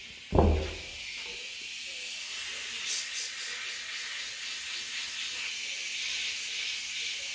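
Compressed air hissing steadily as a small tire is aired up. There is a dull thump about a third of a second in and a couple of faint clicks about three seconds in.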